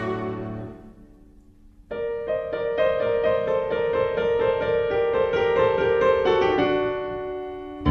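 Background music: the previous piece fades out, and after a short pause a solo piano piece begins about two seconds in, playing a steady run of notes that grows quieter near the end.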